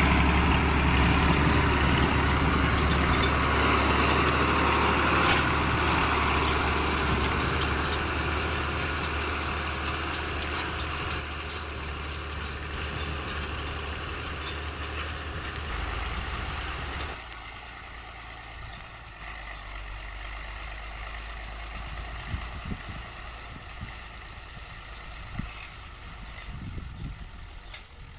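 Fiatagri 100/90 DT tractor's six-cylinder diesel engine working under load pulling a disc harrow, loud at first and fading steadily as it moves away, dropping off sharply about seventeen seconds in.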